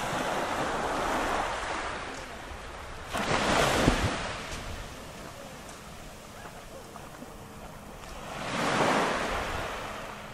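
Sea waves breaking on the beach, the surf swelling and washing in three times: once at the start, a sharper break about three seconds in, and again near the end.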